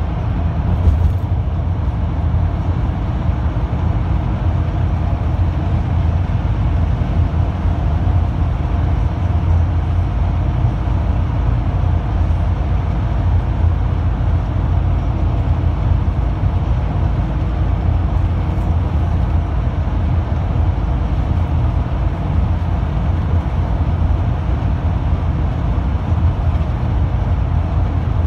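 Cabin noise inside a marshrutka minibus cruising on a highway: a steady low rumble of engine and tyres on the road.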